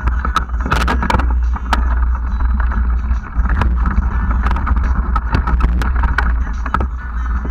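Mountain bike riding fast over rough, rooty dirt singletrack: a steady rumble of wind and tyres, with frequent sharp rattles and knocks as the bike goes over bumps.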